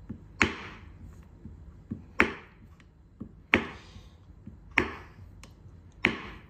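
Kitchen knife chopping a square of dark chocolate on a wooden chopping board: five sharp knocks of the blade striking the board, about one every second and a quarter.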